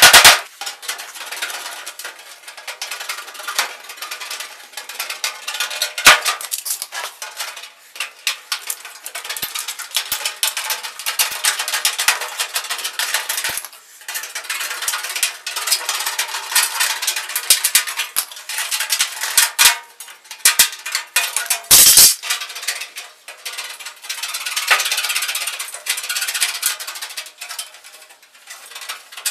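Aviation snips biting through the sheet-metal side of a return-air duct to cut out an opening, a fast run of crisp metallic clicks and crunches, sped up about four times. A couple of sharper metal knocks stand out about six seconds in and again a little after twenty seconds.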